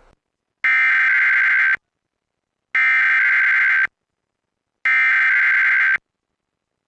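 Emergency Alert System SAME header: three bursts of digital data tones, each about a second long with about a second's gap between them, a harsh buzzing warble of two fast-alternating pitches. This is the encoded header that opens an EAS required weekly test.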